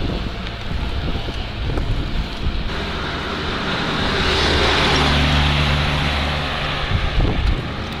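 Wind buffeting the microphone while a car passes on the road: its engine and tyre noise swell from about three seconds in, peak near the middle and fade away.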